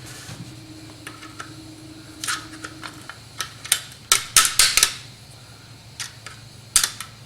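Sharp metallic clicks and taps of small sheet-metal toy-gun parts and a hot rivet being handled and worked at a hinge point. The clicks come in irregular clusters, thickest in the middle and again near the end, over a low steady hum.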